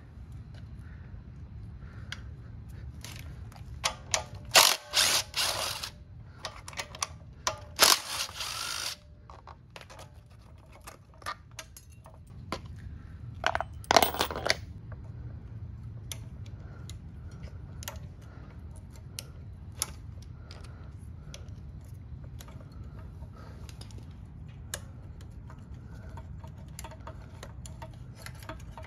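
Hands dismantling a small Honda engine's air filter housing and carburetor: scattered clicks and light clatter of plastic parts, screws and metal linkage, with a few louder scraping rustles in the first half. A steady low hum sits underneath.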